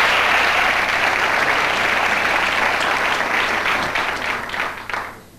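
Studio audience applauding. The applause thins out to scattered claps and stops about five seconds in.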